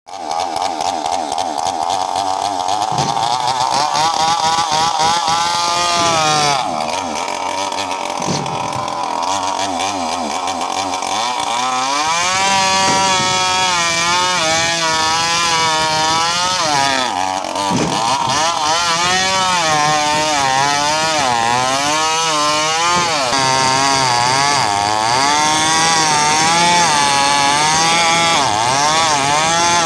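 Two-stroke chainsaw running at high revs, its pitch wavering up and down as it cuts through wood. The pitch drops sharply and climbs back twice, about six seconds in and again around seventeen seconds.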